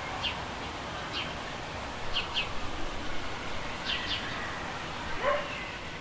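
Small birds chirping outdoors: short, high chirps falling in pitch, some in quick pairs, over a steady background hiss. About five seconds in comes a single louder call that rises in pitch.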